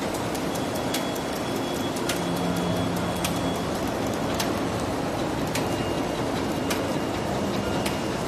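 Sharp-bottom window paper bag making machine running: a steady mechanical din with scattered sharp clicks.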